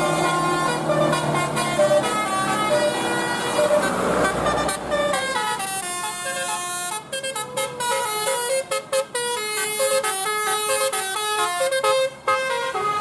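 Bus telolet horn (Basuri musical air horn) playing a quick tune of short stepping notes. The notes get choppier in the second half, with brief breaks between runs.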